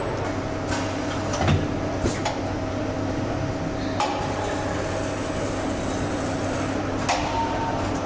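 Assembly-line machinery: a steady electric hum with scattered sharp clicks and knocks from tooling, the loudest about a second and a half in.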